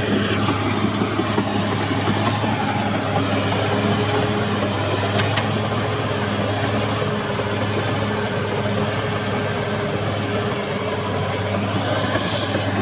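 CAT D6R XL bulldozer's diesel engine running steadily under load, with a dense rattle of the machine working. The engine note briefly rises near the end.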